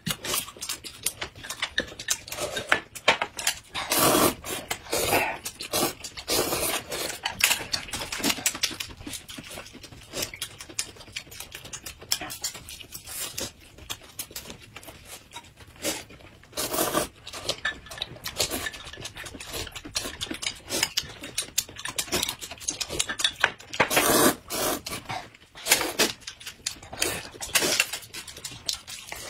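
People eating noisily: a steady run of short chewing and slurping mouth sounds, with louder clusters about 4, 17 and 24 seconds in.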